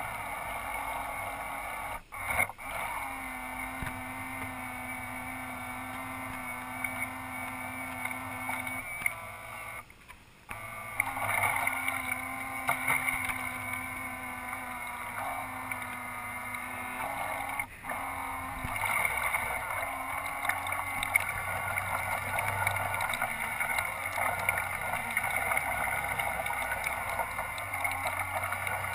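Radio-controlled model ship's motors and propellers running with a steady whine, with water noise around the hull. The whine drops out briefly a few times, longest for about a second around ten seconds in, and its pitch shifts as the throttle changes.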